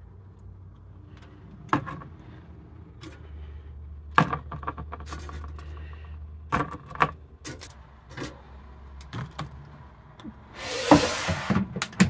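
Metal tongs clicking and tapping against an air fryer basket as fish sticks are lifted out and dropped onto a plate, over a low hum that stops about halfway. Near the end, a loud scraping rush for about a second as the basket slides back into the air fryer.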